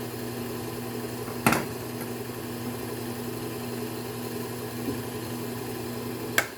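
Electric belt sharpener's motor running steadily with a constant hum. Two sharp clicks come through, about a second and a half in and again near the end.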